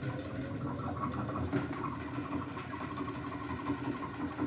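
Washing machine motor, driven by a universal replacement control board, running steadily and turning well.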